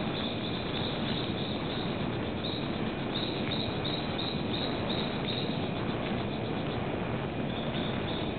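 Rainforest ambience: a steady hiss with a run of short, high chirps about three a second through the middle, and a few more near the end.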